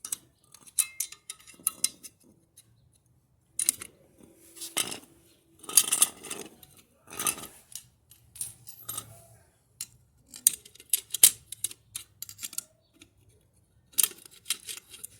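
Metal washing-machine drive parts clinking and clicking as they are handled and fitted together by hand, in irregular short knocks with brief pauses between them.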